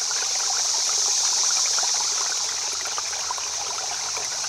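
Stream water running steadily: an even rushing hiss with fine trickling splashes.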